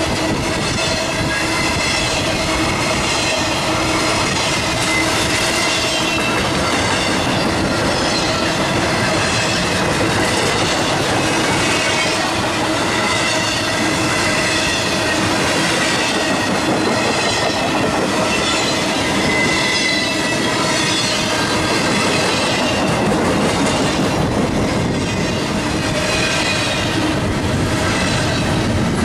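Intermodal freight train's well cars rolling past close by: steel wheels rumbling and clacking on the rails, with thin, high-pitched wheel squeal running through it.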